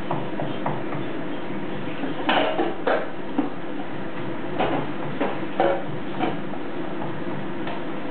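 A cleaver and hands working food on a thick wooden chopping block: irregular knocks and short scrapes, a cluster of them about two seconds in and more scattered through the middle.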